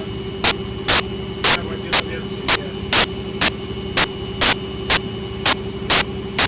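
Servis Quartz 6033 washing machine running: short bursts of rushing noise come about twice a second, evenly spaced, over a steady motor hum.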